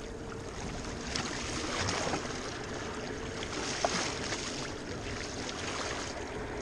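Water splashing and sloshing beside the boat as a hooked white sturgeon thrashes at the surface, with wind noise on the microphone.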